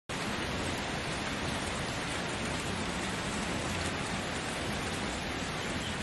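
Steady rain falling, an even, unbroken hiss.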